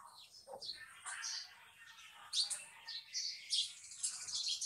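Birds chirping: a string of short, high chirps that come thicker in the second half.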